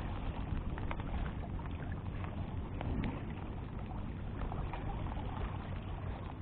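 Steady rushing noise of wind and water, with scattered faint ticks.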